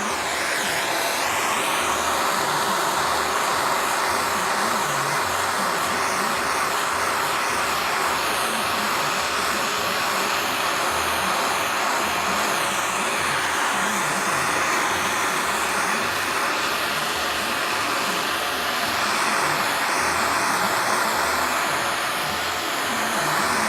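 Torch flame hissing steadily as it is played over the plastic fender to melt out oxidation and scratches.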